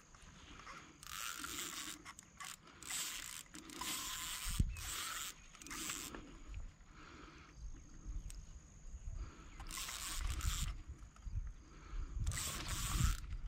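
Fishing reel ratcheting in about seven short, irregular bursts as a hooked carp is played and reeled in.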